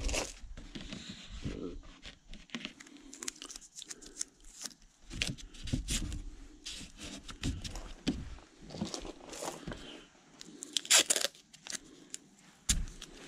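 Irregular handling noises: rustling, crinkling and small knocks, with a louder rustle about eleven seconds in and a dull thump near the end.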